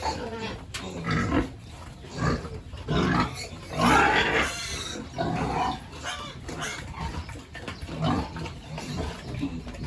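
Pigs grunting and calling in a string of short irregular sounds, with a louder, longer call about four seconds in.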